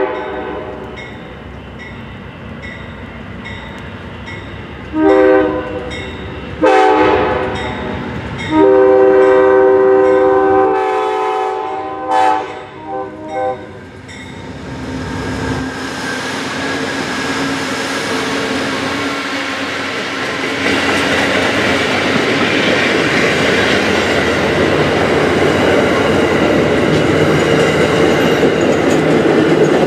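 Amtrak GE P42DC Genesis diesel locomotive's air horn sounding at a grade crossing: a short blast about 5 seconds in, a longer one, then a long held blast ending about 12 seconds in, over a crossing bell dinging about twice a second. From about 14 seconds the passenger train passes close by, its diesel engine and steel wheels on the rail joints rumbling louder as the coaches go past.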